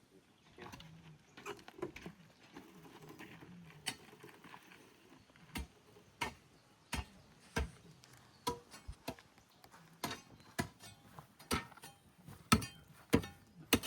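A series of sharp knocks, one every half second to a second. They become more frequent and louder from about the middle on.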